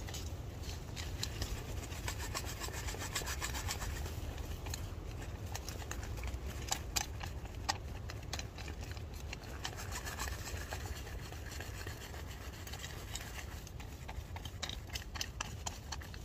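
Foil food pouch and sachet packaging crinkling and rustling, with scratchy rubbing and small clicks, as chocolate drink powder is tipped in and mixed into the pudding. A steady low rumble runs underneath.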